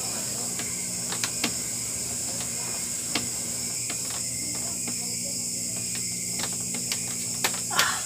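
A homemade barbell being handled during a lift, giving a few light knocks and clicks, then a louder thump near the end as it is lowered to the floor, over a steady high hiss and a low hum.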